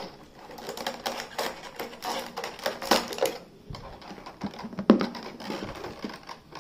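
Irregular clicking and clattering of hard plastic as toy doctor-set pieces are pried out of a clear plastic packaging tray and handled, with a sharper knock about five seconds in.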